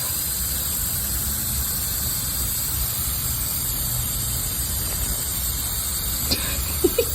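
Shower water spraying with a steady hiss. A few short, sharp sounds stand out near the end.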